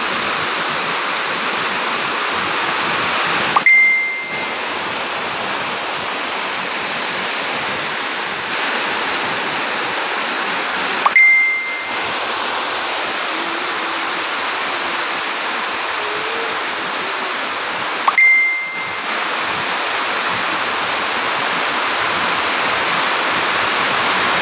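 Steady rushing noise, broken three times, about seven seconds apart, by a short high ding that rings briefly and fades.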